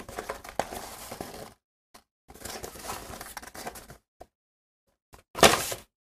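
Cardboard box being handled and turned over in the hands: rubbing and scraping of the card in separate stretches with dead silence between, and a short, louder burst of handling noise about five seconds in.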